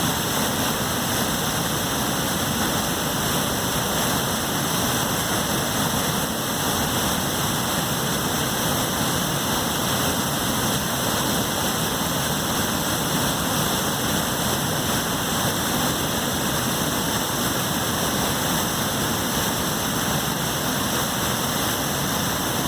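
A swollen river pouring over a dam in a steady, unbroken rush of water.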